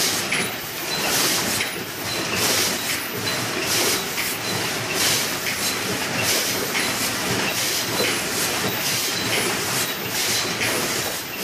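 Paper cup forming machine running, a steady mechanical din with a clatter that repeats roughly once or twice a second as the machine cycles.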